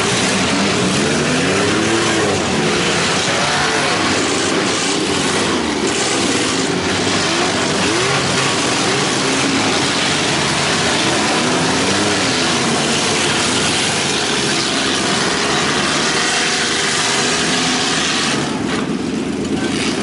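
Several small cars' engines revving together in a demolition derby, their pitch rising and falling again and again over a constant loud din.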